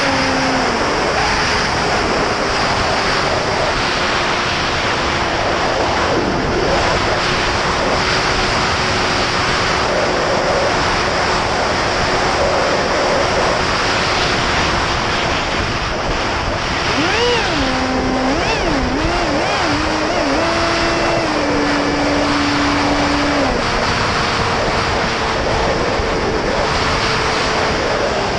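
Onboard sound of an 8S electric FPV flying wing in flight: a constant rush of wind over the camera with the brushless motor and propeller whining underneath, the whine's pitch wavering and stepping up and down with throttle changes a little past the middle.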